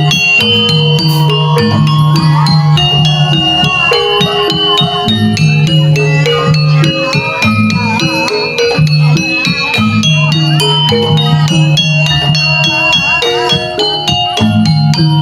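Javanese gamelan music accompanying a jaranan horse dance: metallophones ringing out layered melodic notes over repeating low notes, with steady rattling percussion.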